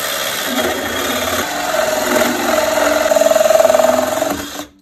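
Handheld cordless power tool running under load on the pipe fitting at the base of a well pressure tank. It grows louder and then stops abruptly near the end.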